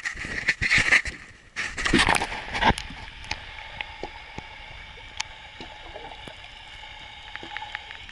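Water sloshing and splashing against the hull of a small wooden boat, loud and irregular for the first three seconds, then settling into a steadier wash with scattered small clicks.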